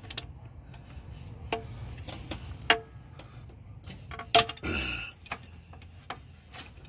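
Scattered sharp clicks and clacks of pliers on metal as radiator hose clamps are worked. The loudest click comes about four and a half seconds in, followed by a brief scraping rustle.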